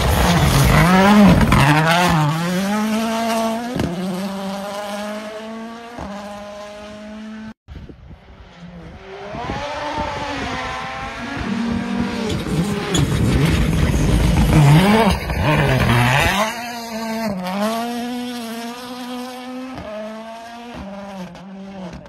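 WRC Rally1 cars at full throttle on a gravel stage, their turbocharged four-cylinder engines revving up and dropping repeatedly through gearshifts as they approach and pass. One car passes in the first seconds, then after a short break a second car comes through.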